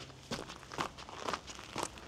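Footsteps of a hiker walking a woodland trail, about two steps a second, each step a short scuffing crunch.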